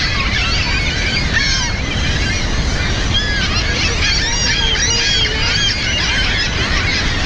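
A gull colony calling: many short, overlapping cries from dozens of birds, over a steady low rumble.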